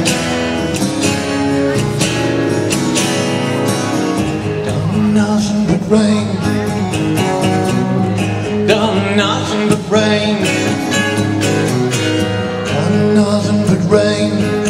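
Live band music: acoustic and electric guitars playing a country-rock song.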